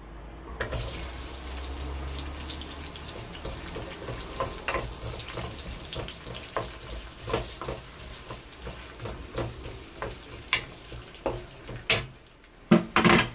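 Chopped onions sizzling in hot sunflower oil in an enamelled frying pan, with a wooden spatula clicking and scraping against the pan as they are stirred. A louder clatter of knocks near the end.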